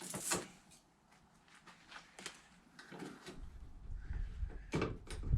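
A few scattered light clicks and scrapes of old trim strips being pried and pulled off a car body. About halfway through a low rumble sets in under them.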